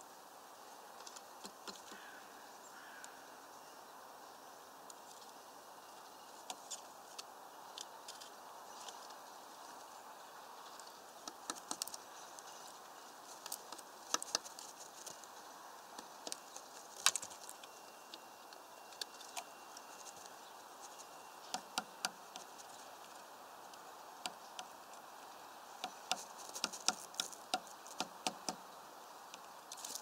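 Great spotted woodpecker pecking at food through a plastic mesh feeder: irregular sharp taps and clicks, coming in quick clusters, over a steady faint hiss.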